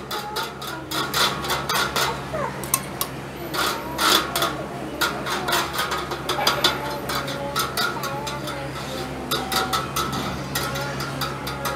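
A metal spoon clinking and scraping against the wire grate of a charcoal grill as oil is spread over the bars, in quick irregular clicks.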